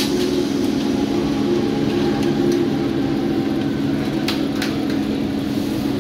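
Electric multiple-unit local train humming steadily alongside the platform, with two sharp clicks about four and a half seconds in.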